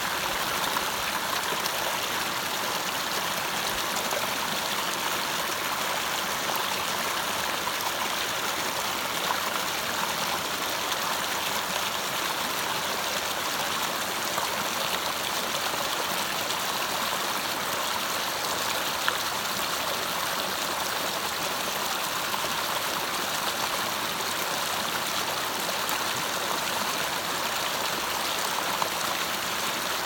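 Shallow rocky stream running over boulders and pebbles: a steady rush of water through small riffles between the rocks, even and unchanging throughout.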